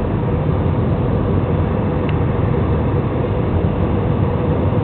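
Steady cabin noise inside a jet airliner: a constant rumble of engines and rushing air, with a faint steady hum running through it.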